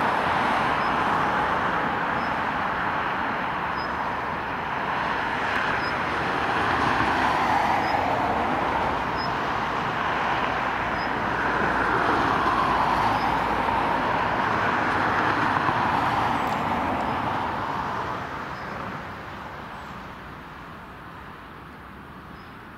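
Jet aircraft noise: a steady rushing roar whose tone slowly wavers up and down, fading away over the last five seconds.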